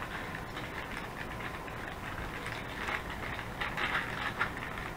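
Plastic MRE hot beverage bag crinkling and rustling in the hands as the air is pressed out and its zip seal is closed, with scattered faint crackles.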